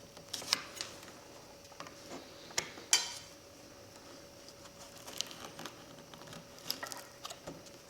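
Steel chisel working under thin Douglas fir door veneer: a few sharp, light clicks and small scrapes, the loudest about three seconds in, over a faint steady hum.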